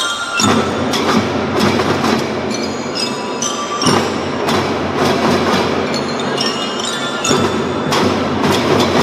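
Children's marching drum band playing: drumming under bright, bell-like mallet percussion, with a steady low layer that sets in about half a second in.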